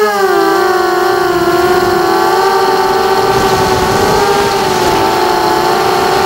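FPV quadcopter's electric motors and propellers whining steadily in flight. The pitch wavers a little with the throttle, dipping slightly about a second in and rising back.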